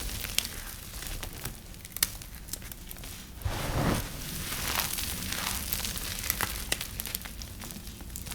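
Dry, crumbly soap being cut with a knife: a run of crisp crackles and snaps, with a longer, louder crunch about three and a half seconds in.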